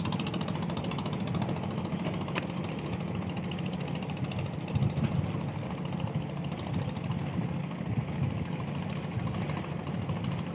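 An engine running steadily with a low, even hum, and a single sharp click a couple of seconds in.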